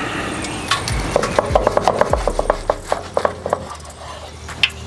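Kitchen knife sawing back and forth through a sandwich of white bread and a deep-fried egg patty on a wooden cutting board: a quick run of short scraping strokes, about six a second, that eases off about three seconds in.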